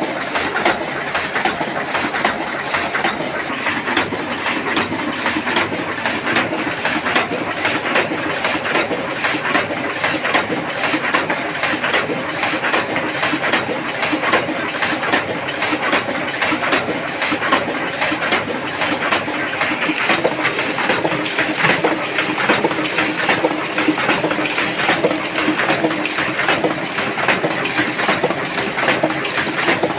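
Heidelberg GTO 52 offset printing press running steadily, a fast, even clatter of its feeding and printing mechanism over a constant hiss.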